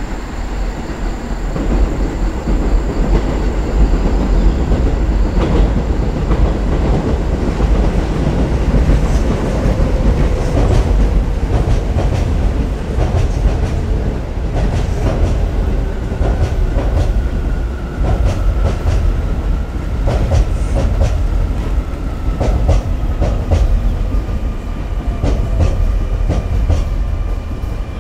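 Electric passenger train running past close by: a steady low rumble with the clickety-clack of wheels over rail joints, and a faint whine that slowly falls in pitch through the second half.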